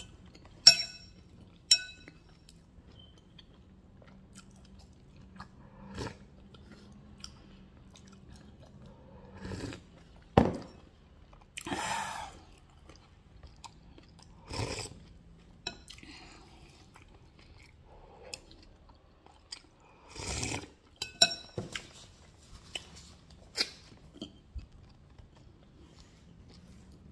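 Close-up eating sounds of a person chewing and crunching through mutton soup and crackers, broken by a few sharp clicks, some with a short ringing, and several longer noisy bursts.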